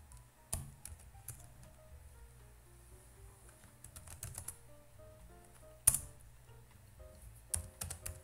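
Computer keyboard keys clicking as a terminal command is typed, in scattered keystrokes and short clusters, with one sharper key strike about six seconds in. Quiet background music with a slow stepping melody plays underneath.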